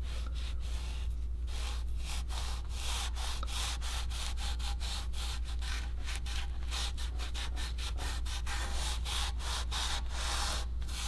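Microfiber cloth rubbed in quick back-and-forth strokes over the wrinkle-finish powder-coated coolant reservoir, working in ceramic coating: a dry scrubbing swish about three or four times a second, over a steady low hum.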